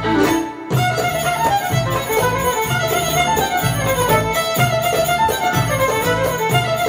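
Live band playing Middle Eastern belly-dance music: a violin leads the melody over mandolin, bass and dumbek, with a steady repeating rhythm. A brief lull in the first second, then the tune carries on.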